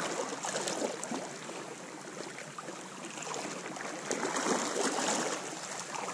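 Sea water washing and lapping around shoreline rocks, a steady rushing that swells briefly about four seconds in.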